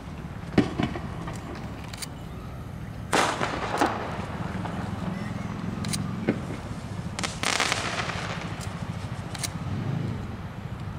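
Fireworks going off: several sharp bangs, two of them, about three and about seven seconds in, trailing into roughly a second of crackle. Under them runs a steady low rumble of traffic.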